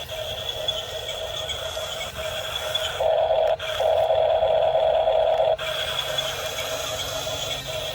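Small electric motors and gearbox of a radio-controlled construction model whining steadily, getting louder for about two and a half seconds from around three seconds in, with a brief dip partway through, then settling back.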